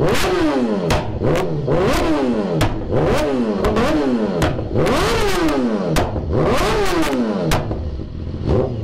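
BMW S1000RR's inline-four engine, through an aftermarket Akrapovič exhaust, being blipped hard on the throttle about once a second, each rev rising and falling quickly, with sharp exhaust pops and cracks as the throttle snaps shut. It drops back toward idle near the end.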